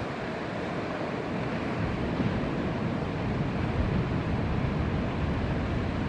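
Ocean surf breaking, a steady rushing noise, with wind buffeting the microphone.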